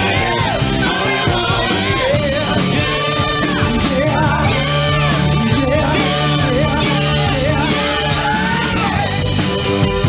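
Rock-and-roll band music with singing.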